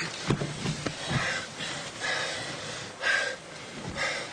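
A person breathing heavily in short, ragged breaths, about one a second.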